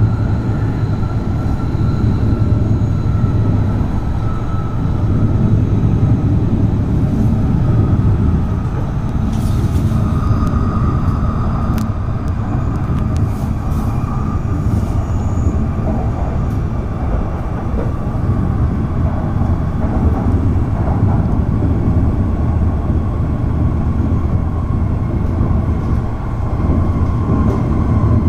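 Hayabusa shinkansen running, heard from inside the passenger cabin: a steady low rumble of the train in motion with a faint whine that slowly falls in pitch.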